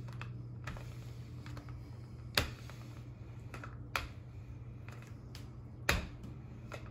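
Wooden rolling pin rolling out salt dough on a pastry mat over a glass tabletop, with about four sharp clicks as the pin knocks and shifts during the strokes, the loudest about two and a half seconds in. A steady low hum runs underneath.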